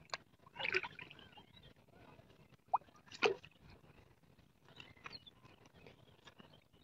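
Faint, scattered dripping and splashing of water as a wet nylon gill net is hauled up out of shallow water, with two louder brief splashes about one second and three seconds in.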